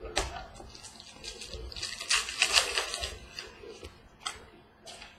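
Trading cards and packs being handled: a string of quick card flicks and clicks, with a denser rustling burst about two to three seconds in.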